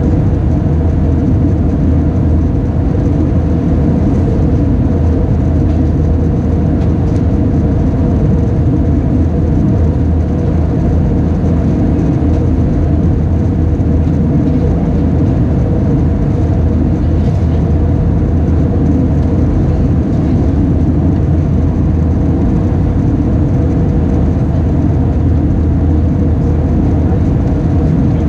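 Steady cabin noise of an Airbus A320 in flight, heard inside the cabin: a low, even drone of the engines and the rush of air past the fuselage.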